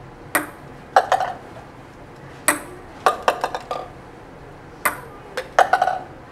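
Ping pong ball bouncing off a desk top and landing in a plastic cup, three times in a row. Each sharp bounce is followed by a short rattle of the ball in the cup.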